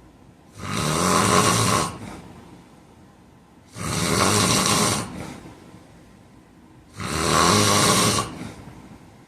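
A man snoring loudly in his sleep: three long snores, roughly three seconds apart, each lasting just over a second.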